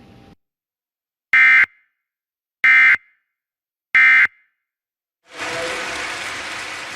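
Emergency Alert System end-of-message tones: three short, shrill digital data bursts about a second apart, signalling the end of the alert. About a second after the last burst, a steady hiss of static comes in.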